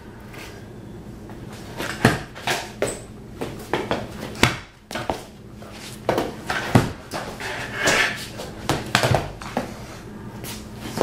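Kick scooter clattering on a concrete floor during trick attempts: an irregular string of sharp knocks and bangs as the deck and wheels hit the ground, the loudest about two seconds in and again near seven seconds.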